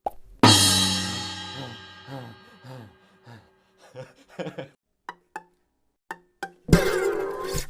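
Cartoon sound effects: a sudden loud hit about half a second in that rings and fades over a couple of seconds, a scatter of short clicks and tones, then a loud noisy burst with sliding tones near the end.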